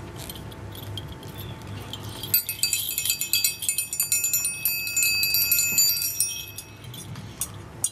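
Metal chimes shaken or strummed: a cluster of high, ringing tones that starts suddenly about two seconds in and rings on for about four seconds before dying away.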